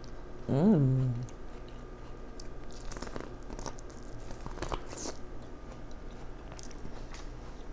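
A person chewing and biting food close to the microphone, with small wet mouth clicks and smacks. About half a second in there is a short hummed "mm" with a rise and fall in pitch.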